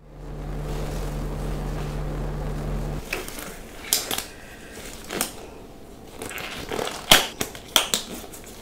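A steady low hum that cuts off abruptly about three seconds in. Then pink disposable gloves are pulled onto the hands, the thin rubber stretching and snapping in scattered sharp crackles and clicks.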